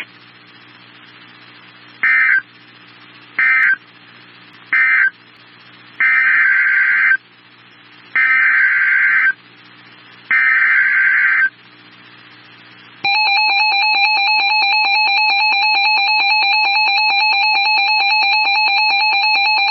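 Emergency Alert System tones. About two seconds in come three short, harsh digital data bursts, the end-of-message code closing the first warning, then three longer bursts, the SAME header of the next warning. Then the steady two-tone EAS attention signal starts and holds.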